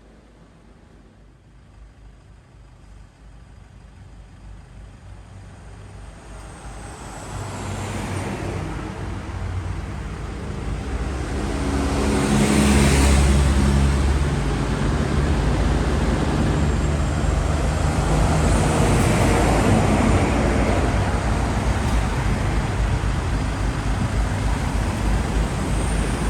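A motor vehicle's engine and road noise, faint at first and growing steadily louder over about the first dozen seconds, then staying loud and steady.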